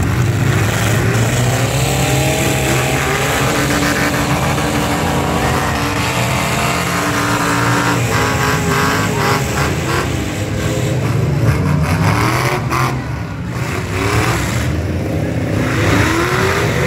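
Several demolition derby pickup trucks' engines running loudly together, their revs repeatedly rising and falling as the trucks accelerate and reverse.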